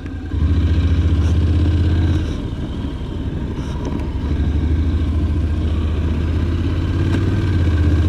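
Honda NC750X parallel-twin engine running at low revs while riding, easing off about two seconds in and picking back up from about four seconds in.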